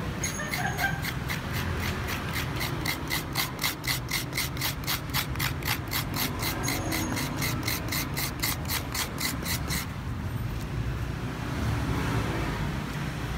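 Metal utensil scraping fresh coconut flesh out of a half coconut shell in quick, even strokes, about four a second, stopping about ten seconds in. A low background rumble runs underneath.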